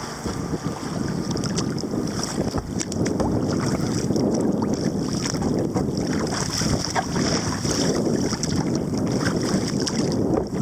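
Wind buffeting the microphone in a steady, dense rush while paddling a kayak straight into a 5–10 knot headwind.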